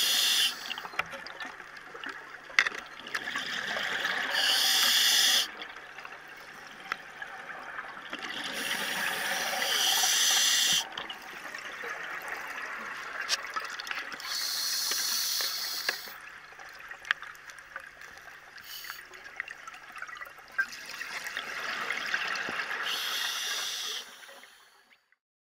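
Scuba diver breathing through an open-circuit regulator underwater: exhaled bubbles rush out in loud bursts of a second or two, every few seconds, with quieter inhale hiss and small clicks between. It cuts off shortly before the end.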